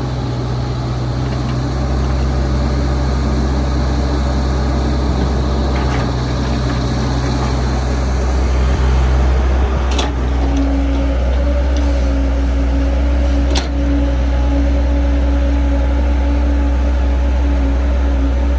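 Heavy diesel engine of earthmoving machinery running steadily, with a few sharp metallic clanks. A steady higher whine joins in about halfway through.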